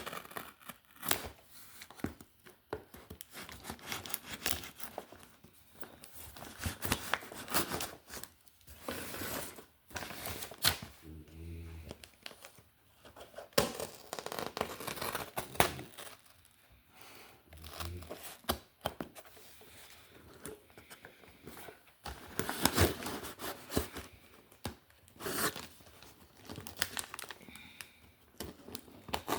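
Packaging being torn open and crumpled by hand: irregular crackly tearing and rustling in bursts as the mystery box is unwrapped.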